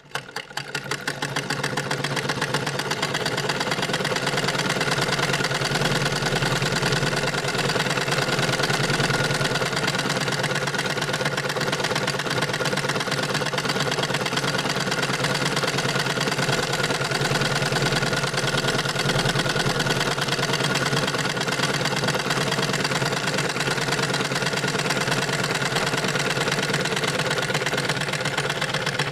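Sewing machine running continuously at speed, a fast, even clatter of stitching strokes. It builds up over the first couple of seconds, then holds steady.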